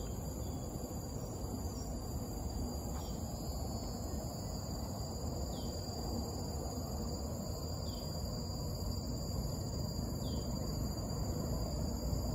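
Outdoor ambience: a steady high-pitched insect drone over a low background rumble, with a bird giving a short falling call about every two and a half seconds.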